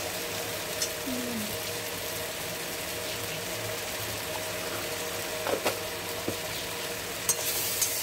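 Spice-coated potatoes frying in oil in a steel kadai, a steady sizzle, with a few light clicks in the second half.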